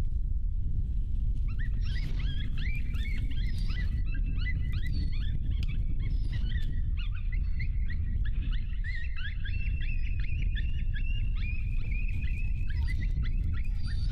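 A pack of coyotes yipping and howling together: a dense chorus of quick falling yips and wavering howls that starts about a second and a half in and keeps going. Under it runs a steady low rumble.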